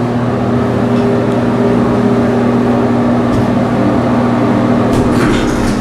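Steady machine hum inside an elevator cab, with a short noise about five seconds in.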